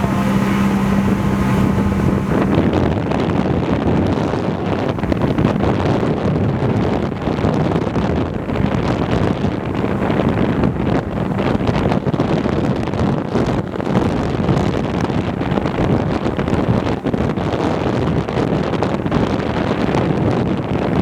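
Speedboat engine running at speed with wind buffeting the microphone. A steady engine tone is clear for the first couple of seconds, then the wind rush mostly covers it.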